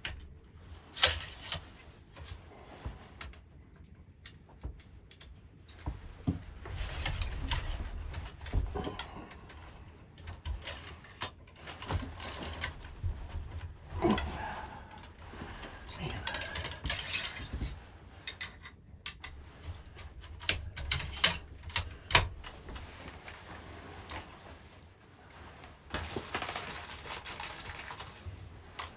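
Irregular close clicks, knocks and rustling from gear being handled, the sharpest cluster about two-thirds of the way through, with low wind rumble coming and going.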